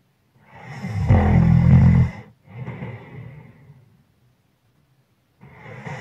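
A sleeping person snoring. About a second in comes one loud, low, buzzing snore lasting about a second, then a softer breath. After a pause, the next snore builds near the end.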